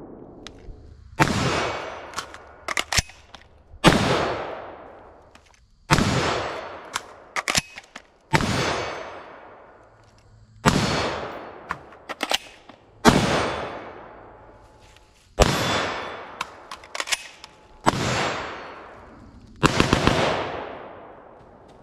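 Single shots from an FN SCAR 16S 5.56 short-barreled rifle, about nine, roughly one every two to two and a half seconds, with a quick pair near the end. Each crack is followed by a long fading echo through the woods, and fainter sharp knocks fall between the shots.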